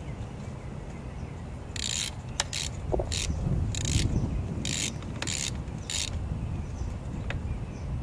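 Hand-tool work on a dirt bike: a run of about seven short rasps about half a second apart, over low handling noise.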